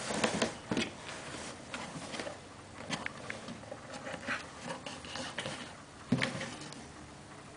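A Turkish Van cat scuffling under a cardboard box on carpet, the box scraping, rustling and knocking as the cat pushes and tips it. The sounds come in irregular bursts, loudest at the start and again about six seconds in.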